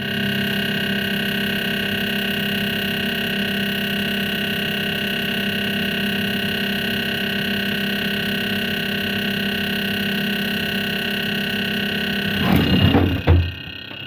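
Refrigerator-freezer combo giving off a loud, steady hum with a high whine over it, strongest low at the back, with vibration that can be felt: an abnormal, unhealthy-sounding noise, not how it should sound. Rustles and knocks break in near the end.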